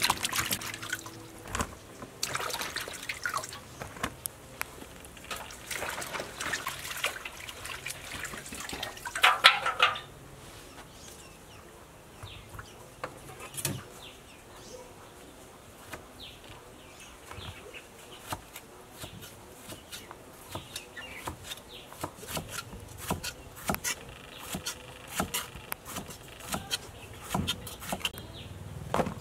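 Hands swishing and splashing snake gourds around in a metal basin of water, the loudest splash just before the sound cuts off sharply about a third of the way in. After that it is much quieter: scattered light clicks and scrapes of a small knife peeling a snake gourd.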